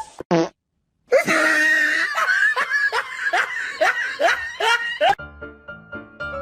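A run of laughing sounds, a fast series of falling pitched bursts about two a second, cut off about five seconds in by music.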